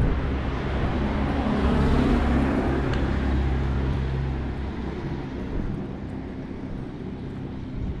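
A motor vehicle passing close by on the street: a low engine hum with road noise that swells to its loudest about two seconds in, then fades away.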